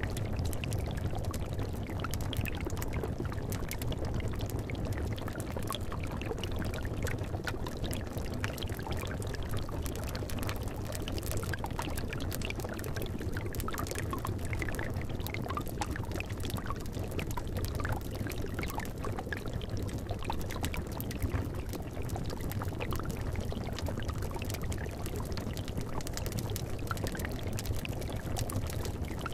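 Liquid bubbling steadily in a cauldron over a wood fire: a dense, even low gurgle with many small pops and crackles scattered through it.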